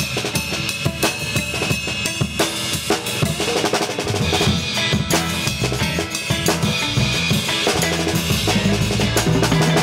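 Gretsch drum kit played in a busy pattern of snare, bass drum, rimshots and cymbals, with hits coming thick and fast.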